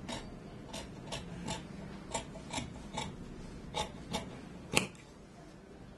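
Large tailor's shears snipping through jacket fabric: about ten crisp snips, roughly two a second. The last and loudest comes just before five seconds in, and then the snipping stops.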